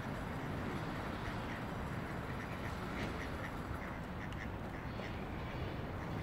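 Mallard ducks quacking in a run of short, repeated calls over a steady low background rumble.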